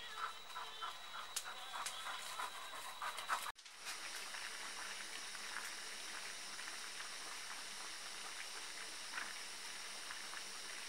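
For the first three and a half seconds, outdoor sound with many short high chirps. After a sudden cut, a portable gas canister stove's burner hisses steadily under a pot heating a pouch meal in water.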